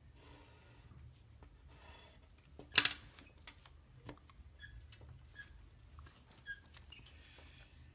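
Faint pen strokes on paper, with one sharp tap a little under three seconds in and a few short, faint squeaks.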